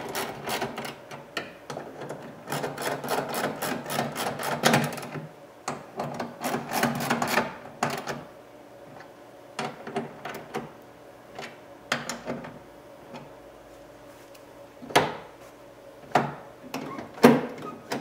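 A socket ratchet clicks in quick runs as it tightens the 10 mm bolts holding an interior door handle inside a car door. Through the second half come scattered clicks, with two sharper knocks near the end.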